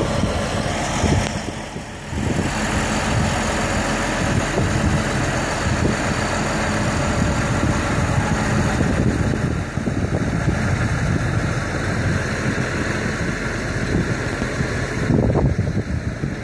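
Big farm tractor's diesel engine running steadily close by, with a brief dip in level about two seconds in.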